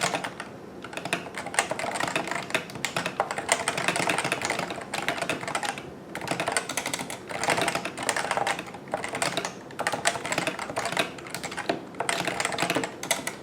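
Typing at speed on a CM Storm Novatouch TKL keyboard with Topre hybrid capacitive switches: dense runs of key presses with brief pauses between.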